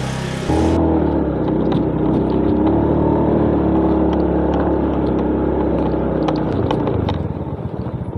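Small motor scooter's engine running steadily as it comes closer, easing off near the end as the scooter slows to a stop.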